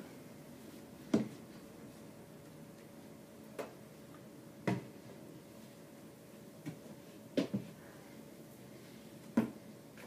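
Irregular short knocks and clunks of hands and objects striking the inside of an under-sink cabinet, about seven of them spaced a second or two apart, over a faint steady hum.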